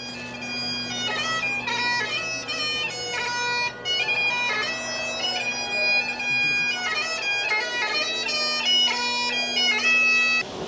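Highland bagpipes playing a tune: a steady drone under the chanter's melody, stopping shortly before the end.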